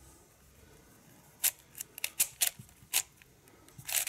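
YJ MGC 4x4 magnetic speed cube being turned fast during a solve. Its plastic layers make a quick, irregular run of sharp clicks and clacks, starting about a second and a half in. The cube is fresh out of the box and not yet properly lubed.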